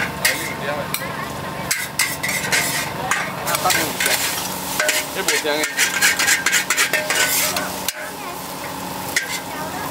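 Metal ladle and spatula scraping and clanking against a wok as char kway teow (flat rice noodles) is stir-fried, with the noodles sizzling in the hot wok.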